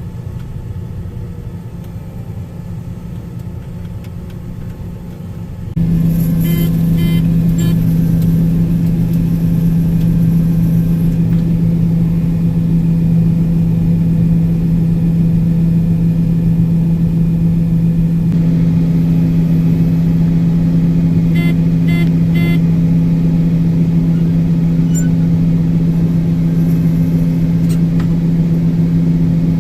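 A large engine running steadily with a constant hum. About six seconds in it steps up sharply in loudness and then holds there, with a few short clicks and rattles later on.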